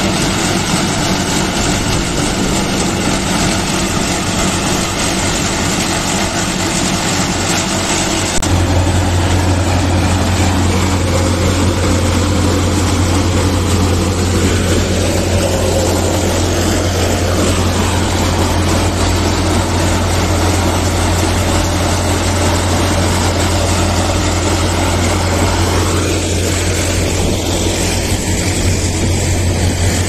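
Small mobile asphalt mixing plant running, a steady engine-and-machinery drone. About eight seconds in, a deeper, stronger hum takes over and holds.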